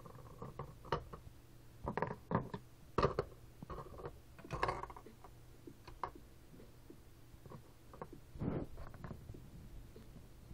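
Small plastic toy figurines being handled and set down, with scattered light clicks and taps against a desk and a metal lamp base.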